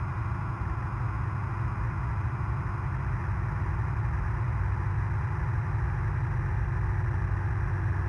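Background heavy metal music: a dense, steady low drone of distorted guitars.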